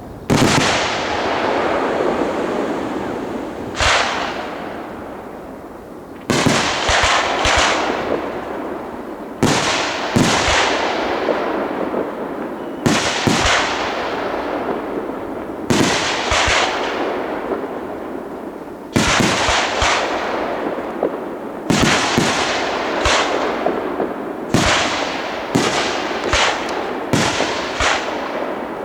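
Professional fireworks display: aerial shells bursting one after another every few seconds, each loud bang trailing off in a long crackling rumble. The bursts come in faster clusters near the end.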